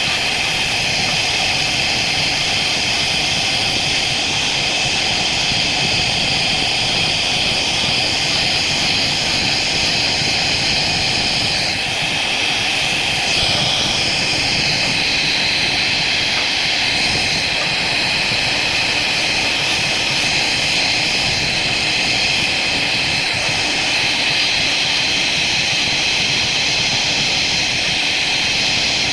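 CNC router spindle running with a steady high-pitched whine, briefly dipping and shifting in pitch about twelve seconds in.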